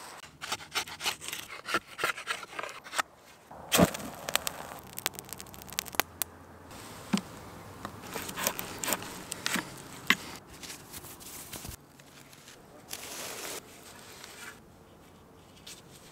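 A drill boring a hole through a wooden stick, with a faint buzz, among many short scrapes, clicks and taps of handling the wood.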